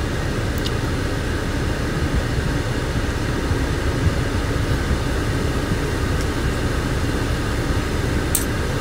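Steady low rumbling background noise, even throughout, with two faint ticks, one about half a second in and one near the end.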